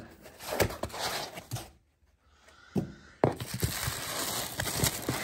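Packaging being handled in a cardboard box: light knocks and scrapes on foam and cardboard, a brief pause, then a sharp knock about three seconds in and a thin plastic bag rustling.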